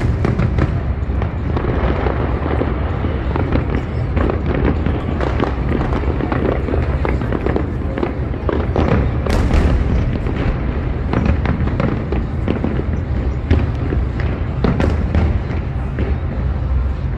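A big fireworks display going off in a continuous barrage of bangs and crackles over a deep, steady rumble.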